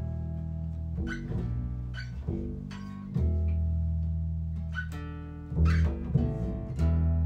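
Instrumental music: guitar plucking notes about once a second over long, held bass notes.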